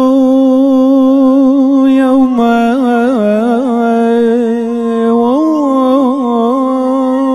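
One male voice singing a Syriac qolo hymn unaccompanied: a long held note with melismatic turns about three seconds in and again about five and a half seconds in.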